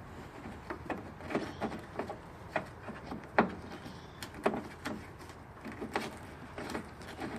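Irregular short clicks and knocks, about one or two a second, from hand tools and metal parts being handled while bolting a trunk latch into a car's trunk lid.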